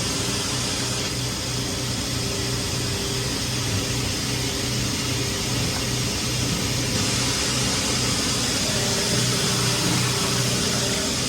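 Duct-cleaning equipment running steadily while a cold-air return wall cavity is cleaned: a constant rushing noise with a low hum that pulses a few times a second.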